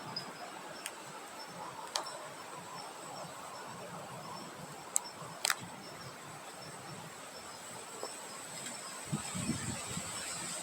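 Outdoor nature ambience: a soft, even wind hiss under a steady high insect trill and a faint, rapidly pulsing chirp. A few sharp clicks come through, one about two seconds in and a pair about five seconds in.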